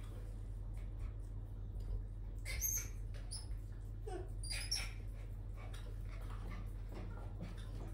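A pet animal's short high-pitched cries, squeaks or whimpers with gliding pitch, in two clusters about two and a half and four to five seconds in, over a steady low hum.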